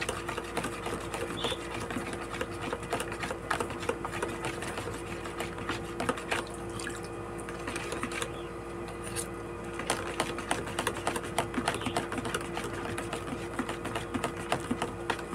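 A utensil stirring vinegar with diced cucumber and chilies in a plastic tub: rapid, irregular clicking and tapping against the plastic with light sloshing of liquid, over a steady low hum.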